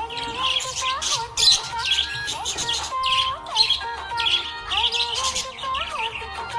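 Budgerigar chirping in quick, repeated high chirps over background music with a short melody that repeats about once a second.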